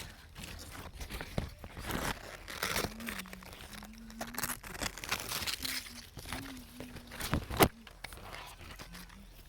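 Irregular rustling and crunching, like leafy plants being handled or pushed through, with one sharp click a little past seven seconds in.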